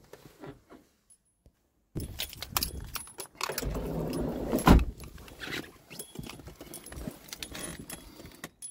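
A person getting out of a small car's side door and into the front seat: rustling and clattering handling noises with sharp clicks from about two seconds in, and one heavy thump about halfway through.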